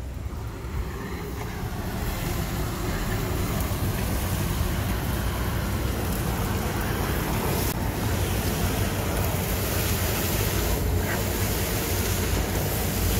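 Glutton battery-electric street vacuum running, its suction hose drawing air with a steady rushing noise as the nozzle is swept over the pavement picking up leaves and litter. The noise builds over the first couple of seconds, then holds level.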